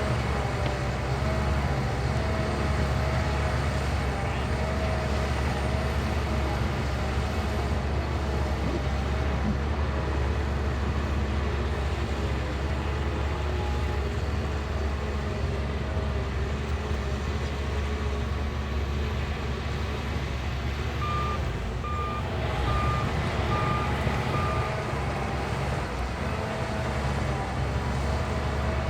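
Shantui bulldozer's diesel engine running steadily under load. About three-quarters of the way through, a reversing alarm beeps about seven times, roughly two beeps a second.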